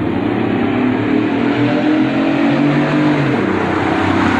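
Loud exhaust note of a 1998 Chevrolet Lumina LTZ's V6, running with the muffler deleted and an aftermarket intake, as the car drives toward the microphone. The engine note is steady, with a brief shift in pitch around the middle.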